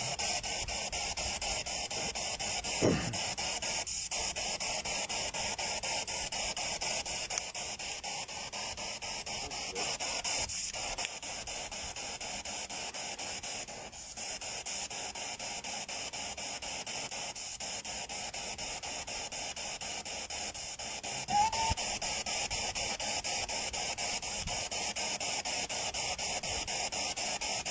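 Spirit box sweeping through radio stations: steady, choppy static hiss, with a short falling tone about three seconds in and a brief chirp about twenty-one seconds in.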